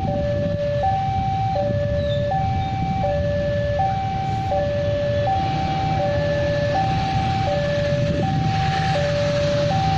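Railway level-crossing warning alarm sounding a continuous hi-lo two-tone pattern, each tone about three-quarters of a second, the signal that a train is approaching. A steady low rumble runs underneath.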